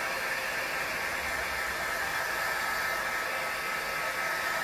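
Embossing heat gun blowing steadily, a fan hiss with a steady whine over it, heating vinyl wrap so it softens enough to stretch around a trim piece.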